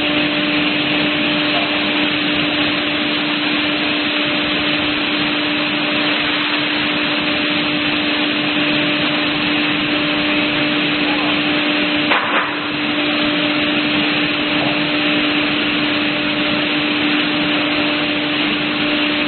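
CNC panel saw running: a steady mechanical drone with a constant low hum throughout. A short knock about twelve seconds in.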